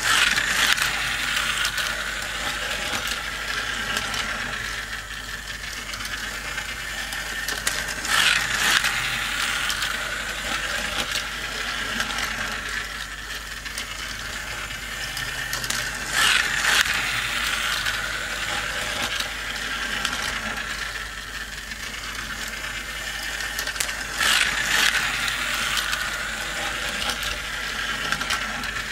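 Two battery-powered toy cars running around a plastic racing track: their small motors and gears whir and their wheels clatter on the plastic, swelling louder about every eight seconds.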